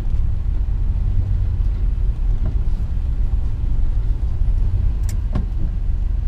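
Steady low rumble of the RV running at low speed, heard from inside the cab, with a couple of short clicks about five seconds in.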